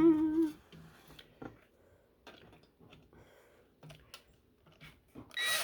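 Scattered light clicks and taps of screws and wooden press parts being handled, with a brief wavering pitched sound at the very start. Near the end a power drill spins up with a rising whine.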